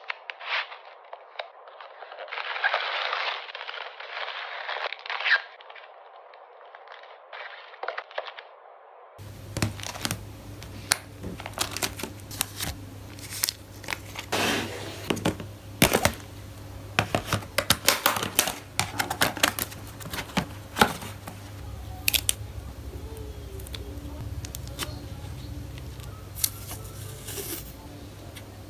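Clear plastic photocard sleeves and a card holder being handled: crinkling, rustling, and sharp plastic clicks and taps as cards are slid in and the holder is sealed with a sticker. The first nine seconds or so sound thinner. After a cut the sound is fuller, with many sharp clicks over a low steady hum.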